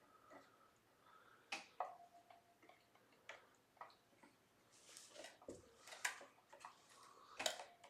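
Faint scattered clicks and taps of hands working on a guitar's exposed electronics, with a few short hissy bursts in the second half.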